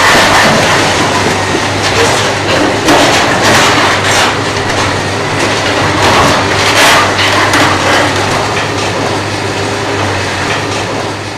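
Hydraulic demolition excavator running while its jaw attachment tears at a building's steel framing: a steady engine drone under repeated metal clanking, scraping and crashing debris, with the sharpest crashes a few seconds in and again past the middle. The sound fades near the end.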